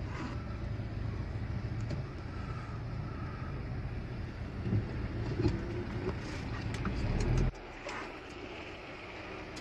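Low, steady rumble of a car heard from inside the cabin, with a few light ticks over it. The rumble drops away suddenly about three-quarters of the way through, leaving a quieter hiss.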